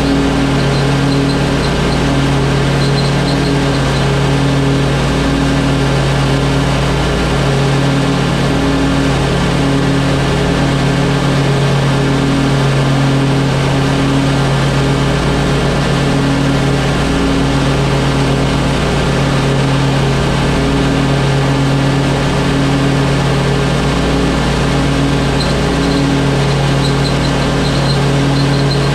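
Stand-on commercial lawn mower's air-cooled engine running steadily at mowing speed, with the blades cutting grass. A few faint high chirps can be heard a couple of seconds in and again near the end.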